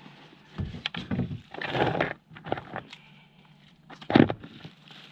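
Fossil shark teeth and stones clicking against each other and a plastic bag rustling as a hand sorts through a bagful of fossils, in a few short spells of rustling and clicks.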